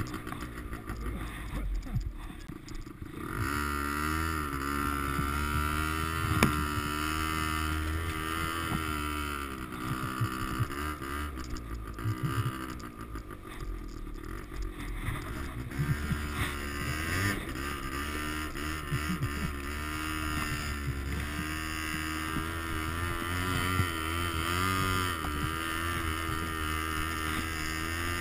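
Quad bike engine running under load, towing a kayak through snow. Its note rises and falls repeatedly as the throttle changes, picking up about three seconds in.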